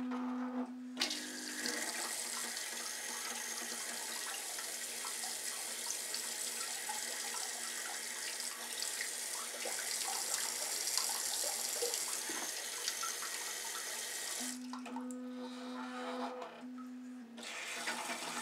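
Toto electronic bidet seat spraying its bidet jet at maximum water pressure, a steady hiss of water splashing against a plastic cup held over the nozzle. A short electric hum comes before the spray starts about a second in and again when it stops after about fourteen seconds, as the nozzle retracts, followed near the end by a softer rinse as the nozzle cleans itself.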